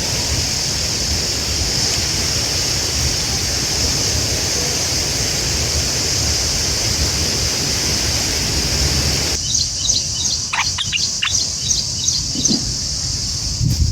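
A steady rushing noise with a strong high hiss runs until about nine seconds in. It then cuts off suddenly, giving way to a quieter background with a series of short, sharp bird chirps and calls.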